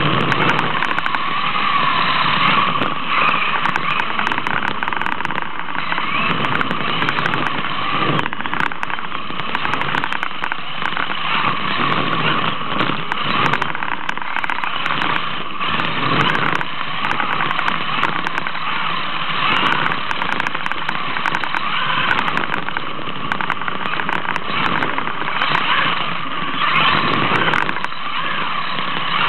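Radio-controlled drift car's motor whining continuously, its pitch rising and falling again and again as the car speeds up and slows while drifting.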